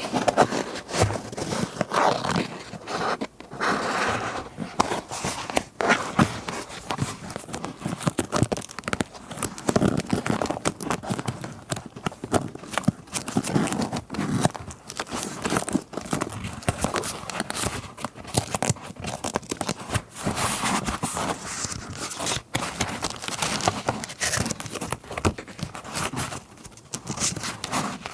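Paper rustling and crinkling as scrapbook papers are handled, with many small taps and scratches close to the microphone.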